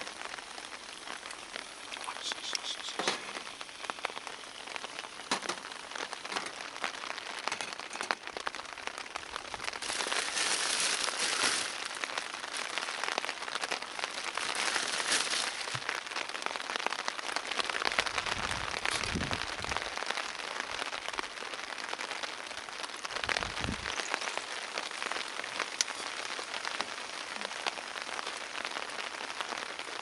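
Eggs frying in a small frying pan, a steady crackling sizzle that swells louder twice in the middle. Two brief low rumbles come in the second half.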